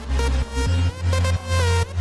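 Electronic dance music with a heavy bass pulse about twice a second and synth notes that slide down in pitch.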